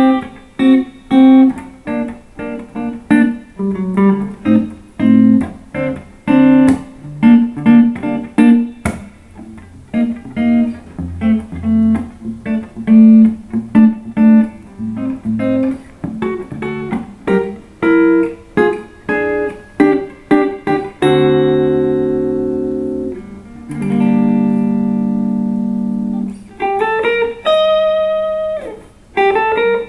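2008 Epiphone Sheraton II semi-hollow electric guitar played clean through a Fender Blues Junior valve amp: a long run of quick single-note lines, then a few long ringing chords about two thirds of the way through, and single notes again near the end.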